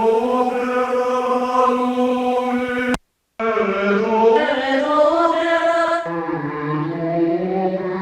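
Akai S612 sampler looping a tiny slice of a spoken-word sample, so the voice turns into a held, buzzy, chant-like drone. It cuts out briefly about three seconds in and drops to a lower, duller pitch about six seconds in as the sample is retriggered.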